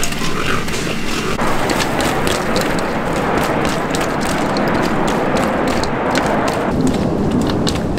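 Fried chicken being tossed in sticky sauce in a hot wok: the sauce sizzles with a steady hiss, and a ladle and wooden spatula clack and scrape against the wok. The hiss swells from about a second and a half in until near the end.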